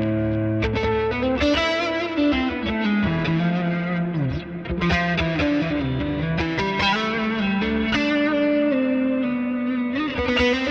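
Jet JS-700 CPR HS electric guitar played through distortion: a melodic line of held notes with string bends and vibrato.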